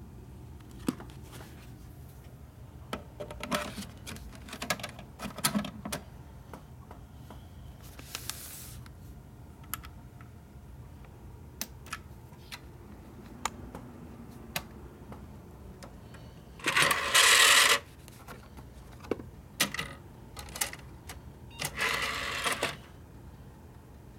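Clicks and knocks from a disk and the drives of an old Packard Bell desktop PC being handled, with two loud mechanical rasps about a second long in the second half.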